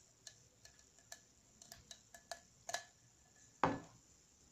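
Plastic top of a Karizma ZMR fuel pump being worked out of its metal canister by hand: a run of small, faint, irregular clicks and ticks, with a louder rustling scrape about three and a half seconds in.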